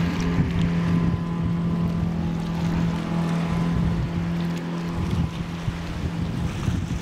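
Boom boat's engine running steadily as the little log-handling boat manoeuvres among floating logs, with the wash of its churned water and some wind on the microphone.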